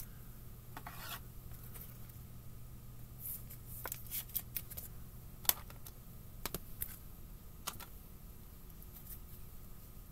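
Hockey trading cards being handled and sorted by hand: scattered soft rustles and sharp little clicks as cards slide and tap together, over a steady low hum.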